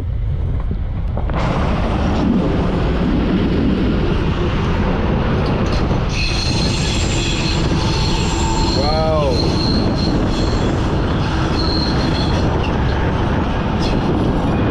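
Old train carriage rolling on the rails with a steady rumble. A high-pitched squeal from the wheels on the rails comes in about six seconds in and fades out around twelve seconds, wavering briefly near the middle.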